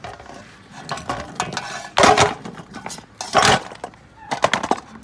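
Small used metal carburetors clattering and knocking together as they are handled and set down, in a few short bursts about a second apart.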